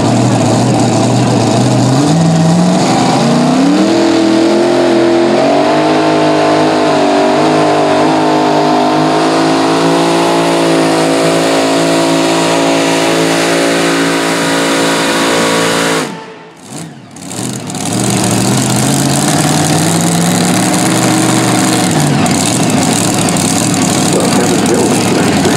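Mini modified pulling tractor's engine revving up hard as it launches, then held at high revs with a slightly wavering pitch as it pulls the sled down the track. About two-thirds of the way through the sound drops out for a second or so. The engine then revs up once more and winds down near the end.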